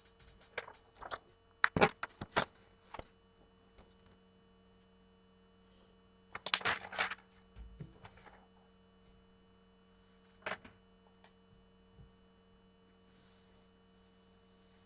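Short sharp clicks and taps of small hard objects being handled, in a cluster about two seconds in, another near seven seconds, and a single tap near ten and a half seconds, over a steady electrical hum.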